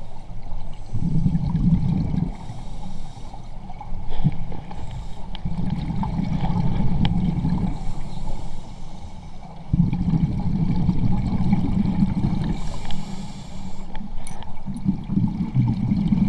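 Scuba regulator exhaust bubbles heard underwater through a GoPro housing: a low bubbling rumble in four bursts, one per breath out, with quieter gaps for the breaths in.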